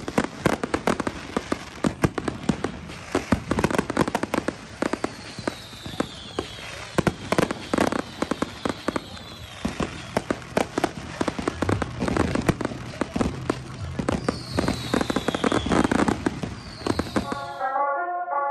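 Consumer aerial fireworks going off in quick succession: a dense string of crackling pops and bangs, with a few falling whistles. It stops abruptly near the end, and music starts.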